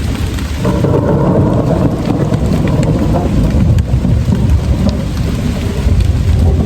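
Steady rain falling with a long roll of thunder rumbling, the rumble swelling about a second in and running on.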